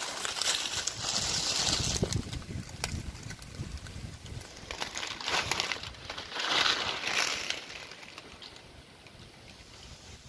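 Wind gusting on the microphone and rustling dry leaves. It comes in surges, with two stronger gusts, and dies down near the end.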